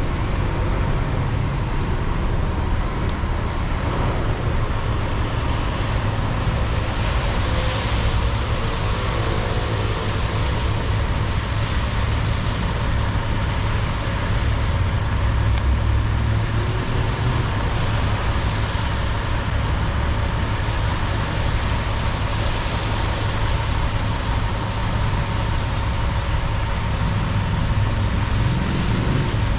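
A car driving on a rain-wet city street: steady low road and engine rumble with tyre hiss off the wet pavement, which swells and fades every few seconds.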